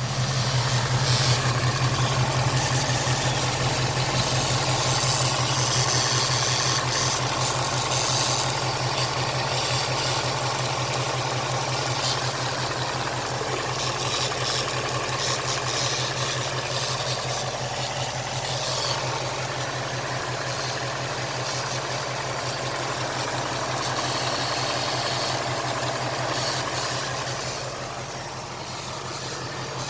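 2018 Ford Mustang GT's 5.0 L V8 idling steadily, with a weird zapping hiss that comes and goes every few seconds over the idle.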